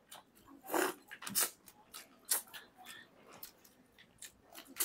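Mouth sounds of eating prawn curry and rice by hand: scattered short wet smacks and clicks of lips and chewing, the loudest about a second in.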